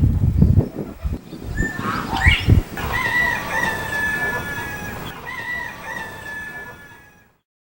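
Rooster crowing: one long, drawn-out crow at a fairly steady pitch, cut off abruptly near the end. Low rumbling thumps come in the first couple of seconds.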